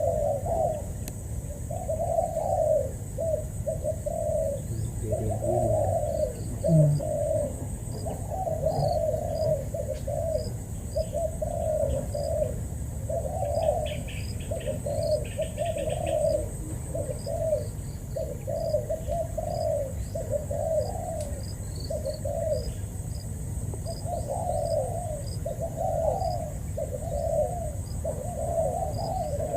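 Spotted dove cooing, phrase after phrase, about once a second with hardly a pause, with faint chirps of small birds above it.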